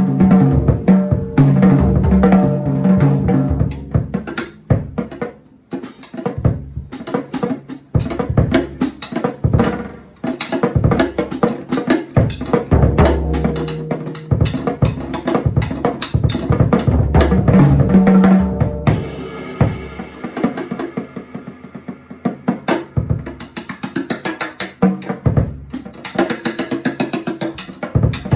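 Music led by a drum kit, with bass drum and snare strikes over pitched instruments.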